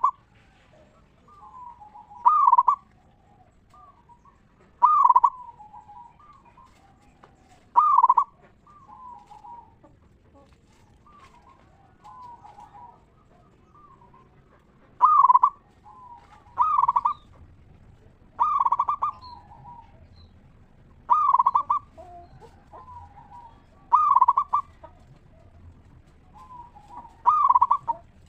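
Zebra dove (perkutut) cooing: a loud, ringing coo every two to three seconds, with softer cooing notes in between.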